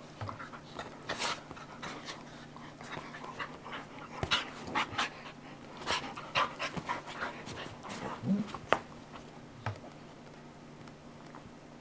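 A German Shepherd and a Brittany Spaniel/cattle dog mix play-wrestling: a run of quick, noisy panting breaths and huffs as they mouth at each other, with a brief low rising vocal sound about eight seconds in.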